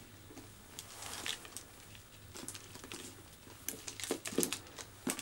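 Small clinks and rustles of a Chanel flap bag's gold-tone chain strap and pearl beads being handled, a scatter of light ticks, with a few sharper ones near the end.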